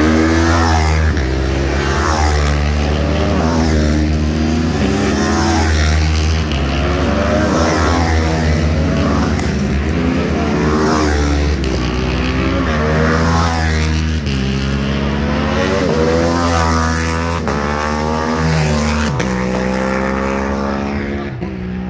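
Racing motorcycles passing one after another at speed, each engine note rising and falling in pitch as the bike goes by, with a steady low rumble underneath.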